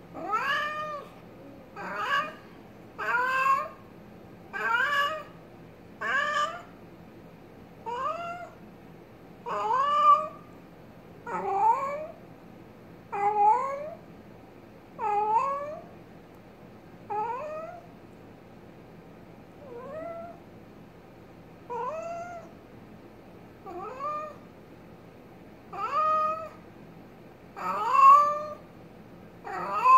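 Domestic cat meowing over and over, about one meow every one and a half to two seconds. Each call is drawn out and rises then falls in pitch.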